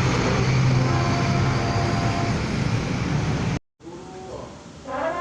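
Bus running loudly, with a low hum under a rush of noise and a few faint horn notes mixed in. The sound cuts off abruptly about three and a half seconds in, and near the end the bus's telolet horn starts sounding a melody note.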